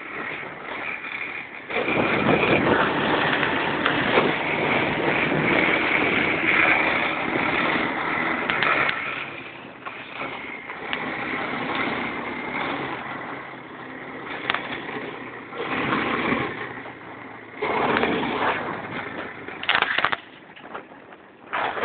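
Quad bike (ATV) engine running while riding over a dirt farm track, with noisy rumble from the ride. It is loud for the first several seconds, then quieter, with a few loud noisy swells near the end.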